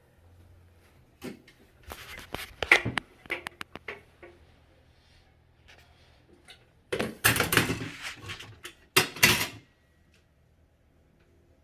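Handling noise of clicks, knocks and rustles, in two clusters about two and seven seconds in.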